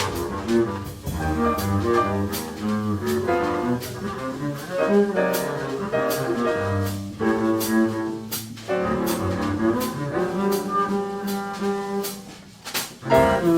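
Live jazz combo playing, with a double bass under a melody instrument and steady cymbal strokes keeping time; the music dips briefly near the end.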